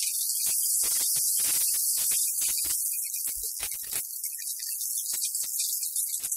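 Mixed vegetables (cauliflower, peas, carrot, capsicum) sizzling in hot oil in a non-stick frying pan with a steady hiss, while a wooden spatula stirs them with frequent short scrapes and taps against the pan.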